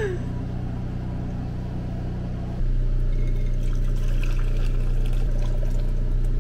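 Elderberry tea poured from a saucepan through a mesh strainer into a French press, starting a little under three seconds in, over a steady low hum.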